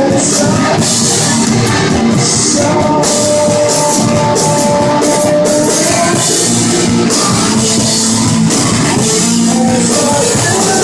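Rock band playing live and loud: electric guitars over a drum kit, holding sustained notes in a dense, unbroken wall of sound.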